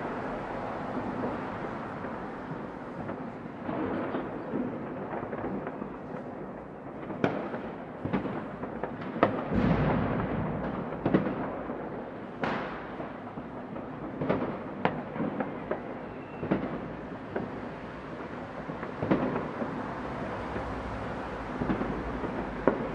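City-wide New Year's Eve fireworks: a continuous rumble of distant bangs with frequent sharp nearer firecracker cracks and bangs at irregular intervals.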